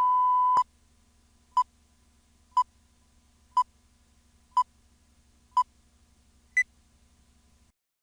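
A steady test tone that cuts off about half a second in, then six short beeps one second apart, the last one higher-pitched, over a faint low hum: the reference tone and countdown beeps at the head of a film transfer.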